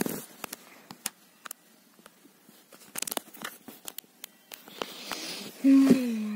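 Light rustling of bedding and scattered clicks of a phone being handled close to the microphone. Near the end comes a breath, then a short hummed vocal groan, held and then dipping slightly in pitch, as the girl stretches in bed.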